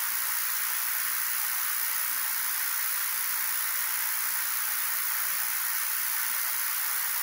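Steady high-pitched hiss of recording noise, even and unchanging, with no other sound over it.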